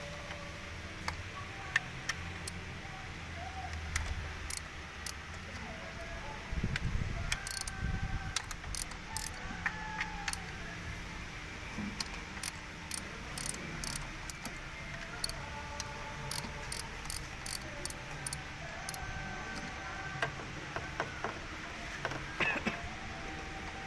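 Faint steady background with many short, sharp light clicks and clinks scattered irregularly throughout.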